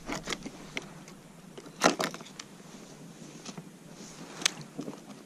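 Scattered light clicks and knocks of something hard being handled, with a sharp louder knock about two seconds in and another near four and a half seconds.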